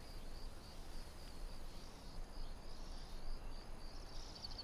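Crickets chirring steadily in an open-field ambience over a low background hiss, with a quick run of sharper, higher chirps near the end.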